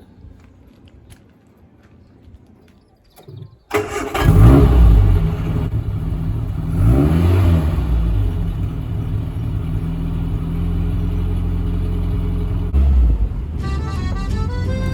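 1972 MG Midget's four-cylinder engine starting: it catches about four seconds in and revs up, is blipped again, then settles into a steady idle, with one more short blip of the throttle near the end.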